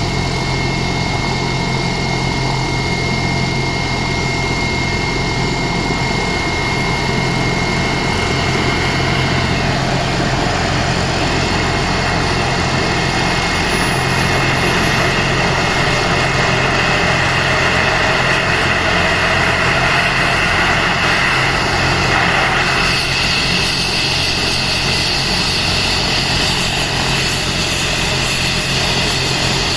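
Air ambulance helicopter running on the ground with its rotor turning, a steady low hum underneath. A high whine climbs slowly in pitch over about fifteen seconds from a quarter of the way in, and the sound grows fuller about three-quarters through as power comes up for takeoff.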